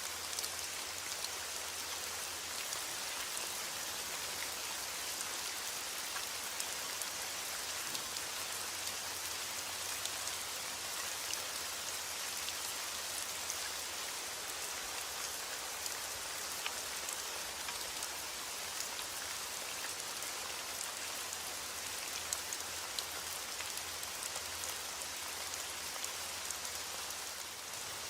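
Steady, even rainfall, with scattered sharp ticks of individual drops hitting a surface.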